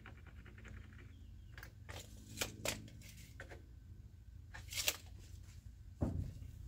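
Hand tools being handled against a cedar slab: a quick rattle of fast ticks at the start, a few sharp knocks in the middle, and a dull thump near the end.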